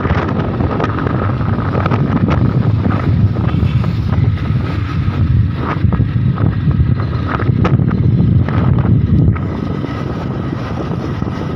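Motorcycle riding at speed: wind buffeting the microphone over the engine's steady low rumble, easing slightly about nine seconds in.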